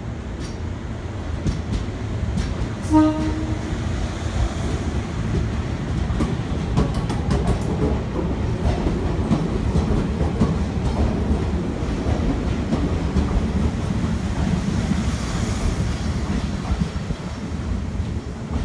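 Tobu Railway Kirifuri limited-express electric train pulling out and passing close by. It gives a short horn blast about three seconds in, then comes the running rumble of the cars with wheels clicking over rail joints.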